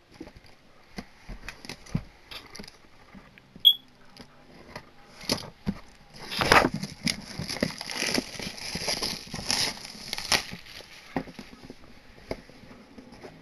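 Plastic shrink wrap crinkling and tearing as it is pulled off a cardboard box, with scattered taps and clicks at first and a stretch of dense crinkling from about halfway through.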